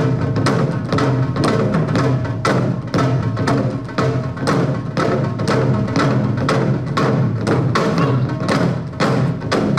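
Korean traditional drum ensemble playing together: a janggu hourglass drum and buk barrel drums beaten in a fast, steady rhythm of about three strong strokes a second.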